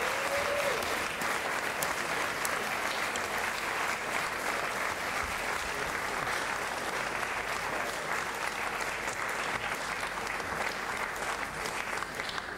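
A large audience applauding steadily, dense even clapping that tapers slightly near the end.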